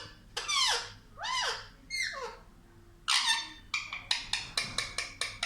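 Pet parrot calling: three pitched calls that rise and fall, a harsh squawk about three seconds in, then a fast run of clicks, about eight a second, near the end.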